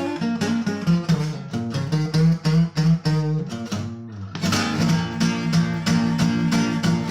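Instrumental background music with quick, rhythmic pitched notes, pausing briefly about four seconds in before carrying on.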